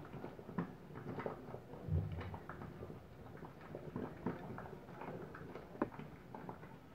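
Metal spoon scooping orange-juice syrup from a small steel saucepan and pouring it over a sponge cake: soft, scattered clinks and taps of spoon against pan, with a duller knock about two seconds in.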